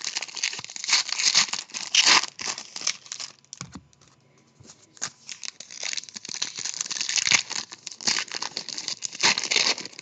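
Foil trading-card pack wrappers crinkling and tearing as packs are opened and handled, in dense irregular crackles with a short lull about four seconds in.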